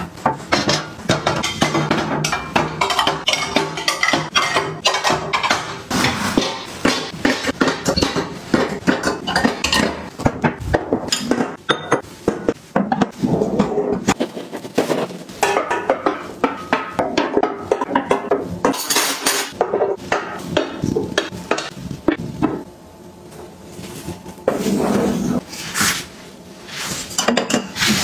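Plastic drawer dividers in a pull-out kitchen drawer basket knock and click many times in quick succession as they are moved and set in place, and ceramic plates clink as they are handled near the end.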